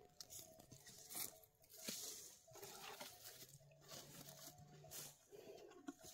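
Faint crunching and rustling of footsteps through dry, harvested bean vines and stalks, in short irregular crackles.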